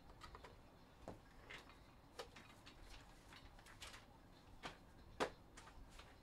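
Near silence with faint, irregular clicks and light taps, about one every second or so, and one sharper click about five seconds in.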